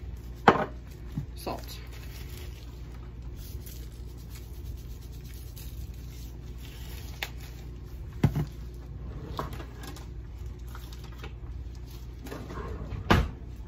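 Salt shaken from a shaker over a dish of cut potatoes, amid kitchen handling sounds: three sharp knocks from containers and utensils, about half a second in, about eight seconds in and near the end, over a steady low hum.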